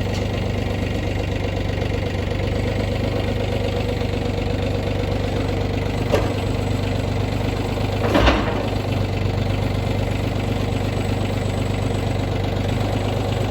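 The engine of a bucket loader running at a steady idle, with a short knock about six seconds in and a louder clunk about eight seconds in.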